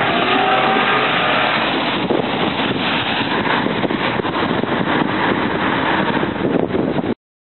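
Amtrak Coast Starlight passenger train passing close by: a loud, steady rushing noise of wheels on rails with a run of faint clicks, which cuts off abruptly near the end.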